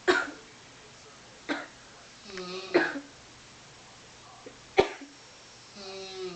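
A sleeping person's odd snoring: four short, sharp snorts a second or two apart, with two longer voiced sounds of about half a second each, one just before the third snort and one near the end.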